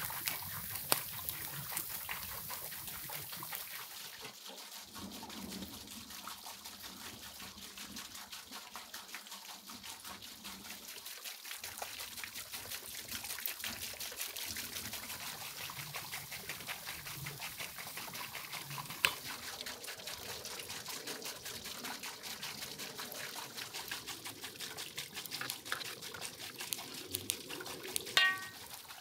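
A whole sturgeon roasting over hot coals on a homemade grill, with basting liquid ladled over it that drips and sizzles on the coals amid steady fine crackling. A few sharper clicks, and a brief high squeak near the end.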